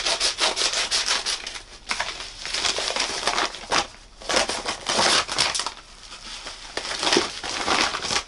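A white postal mailer crinkling and rustling in a string of bursts as it is handled, cut open with scissors and torn back from the book inside.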